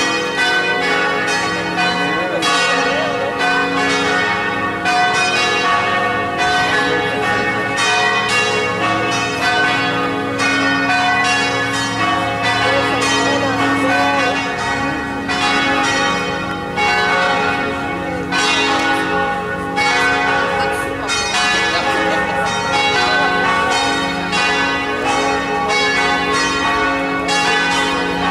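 Church bells ringing together in a full peal, several bells struck again and again so that their tones overlap and ring on.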